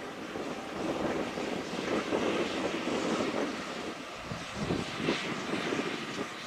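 Fendt 6275 L combine harvester running as it harvests, a steady rushing mechanical drone that swells and dips slightly.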